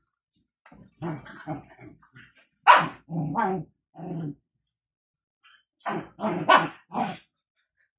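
A dog barking, a run of short barks in three bouts, the loudest a little under three seconds in and another run of barks near the end.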